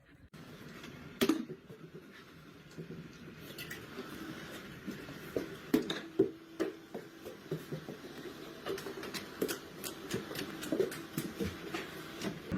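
Irregular light taps and clicks over a faint steady background, with a few sharper clicks about a second in and around six seconds.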